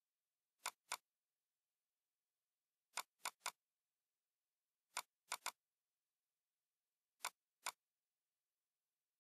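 Computer mouse button clicking: ten sharp clicks in quick groups of two or three, with dead silence between them.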